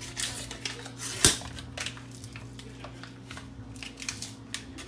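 Crescent roll dough can and its wrapper being handled and worked open: short rustles and clicks, with one sharp crack about a second in.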